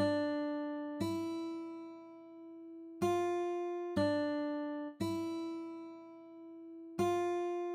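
Music: a slow keyboard line of single notes, six of them struck about a second apart with a gap or two, each fading away, alternating between two close pitches.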